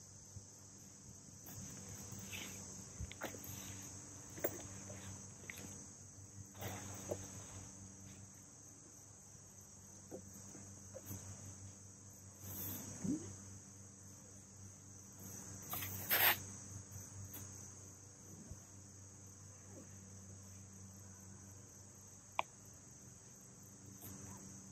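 Faint, steady chirring of crickets, with handling sounds from a folding solar panel and its fabric case being opened out and stood up: scattered clicks and rustles, the loudest a brief rasp about sixteen seconds in.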